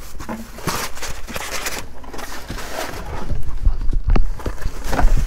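Packaging being handled: rustling and scattered clicks, then several dull thumps about three seconds in as a cardboard box is picked up and moved.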